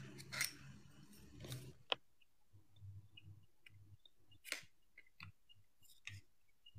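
Faint handling clicks of hard plastic parts as a small black gadget is fitted onto a tripod stand: a sharp click about two seconds in, then a few more separate clicks and taps with soft rustling between them.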